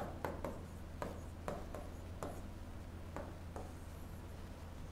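Stylus writing on an interactive whiteboard screen: a series of irregular taps and short scrapes as the letters are drawn.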